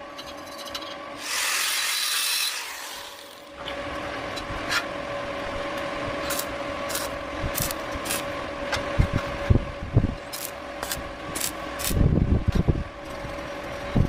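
Hand work on wood with a tool: a hissing scrape lasting about two seconds, then a run of short scraping strokes and sharp clicks, with heavier thuds near the end, over a faint steady hum.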